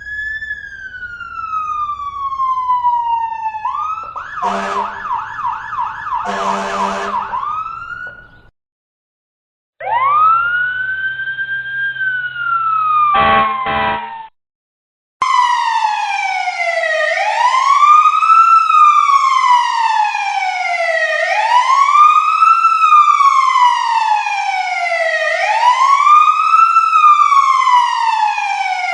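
A series of fire truck siren sound effects. First a wail slides down, then a fast yelping warble with short blasts runs for about four seconds. After a brief silence a wail rises and falls and ends in rapid pulses. After another short gap, from about fifteen seconds in, a wail rises and falls steadily, about once every four seconds.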